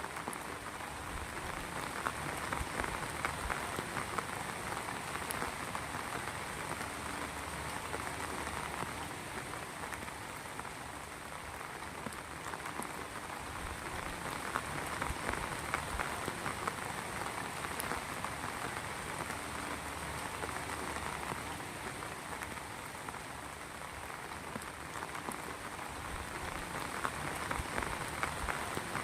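Heavy rain falling steadily, a dense spray of drops hitting a surface, swelling and easing slightly in intensity a few times.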